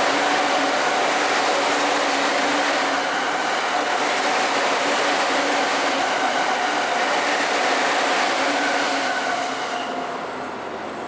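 Electric train running past, a steady rush of wheel and motor noise with a faint low hum, easing off about ten seconds in.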